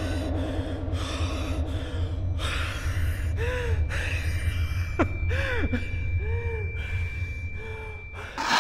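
A man's ragged, panicked gasping breaths over a steady low droning hum, with a few eerie arched tones and a thin held high tone. A sudden loud burst of noise comes right at the end.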